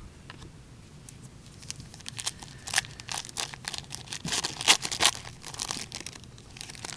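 Crinkling of trading card packaging handled in gloved hands: an irregular run of sharp crackles, loudest a little past the middle.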